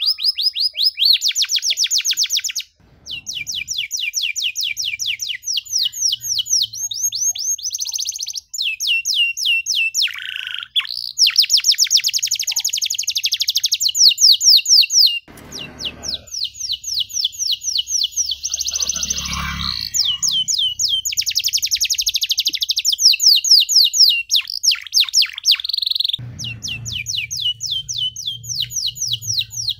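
Domestic canary singing a long, loud song of very fast trills and rapidly repeated notes, phrase after phrase with only brief breaks. A faint low hum comes in near the end.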